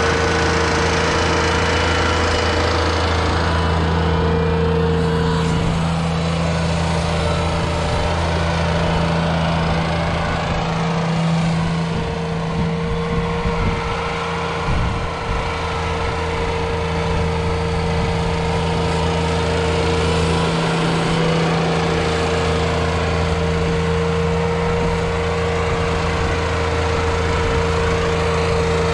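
Ventrac 4500Y compact tractor's Yanmar diesel engine running at a steady speed while the tractor pushes snow with its front blade.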